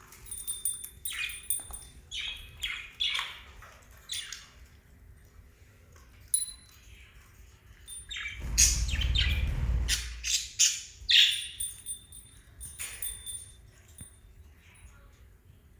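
Small pet parrots chirping in short, repeated high calls. A louder rustling noise comes in about eight and a half seconds in and lasts over a second.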